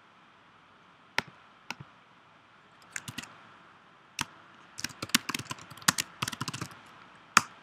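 Computer typing: a few separate clicks, then a quick run of keystrokes typing a short word for about two seconds, and one more click near the end.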